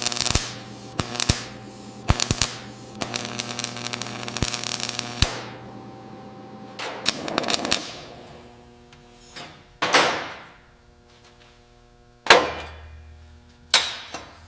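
Workshop tool sounds: a quick run of sharp clicks and knocks over a steady hum, then several separate metallic hits that ring out and fade.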